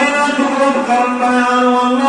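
A man chanting in a melodic recitation, holding one long, nearly level note.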